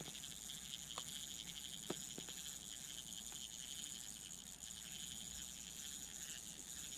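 Small spinning reel on an ice-fishing rod being cranked steadily, a faint fast whirring tick from its gears as a hooked fish is reeled up through the hole.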